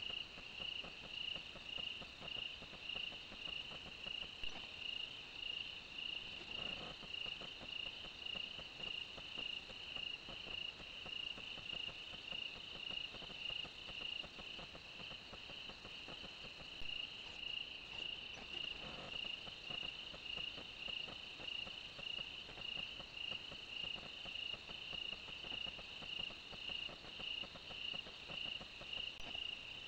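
Crickets chirping steadily at night: a high, even pulsing at about two chirps a second, with a fainter steady higher tone above it.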